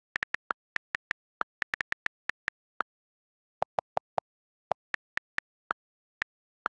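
iPad on-screen keyboard click sounds as a message is typed: about two dozen quick, separate key clicks at an uneven typing rhythm. A few clicks near the middle are lower-pitched, from different keys.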